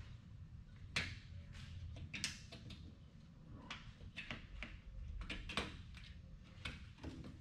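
Plastic push-pin clips being pried out of a Toyota Prius's plastic under-engine skid plate with a body panel removal tool: a string of irregular sharp clicks and snaps, the loudest about a second in, over a low rumble.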